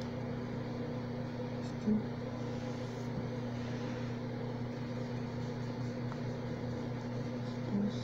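Steady low electric hum over an even hiss, typical of an electric stand fan's motor running. Two faint brief blips come about two seconds in and near the end.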